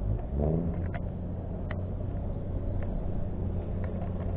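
An engine revs up briefly about half a second in, then runs at a steady low pitch; a few faint clicks sound over it.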